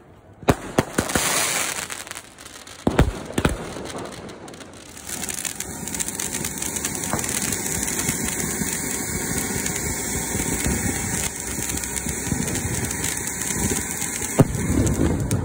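A few sharp firework bangs in the first few seconds, then a ground fountain firework spraying sparks with a steady loud hiss and fine crackle from about five seconds in.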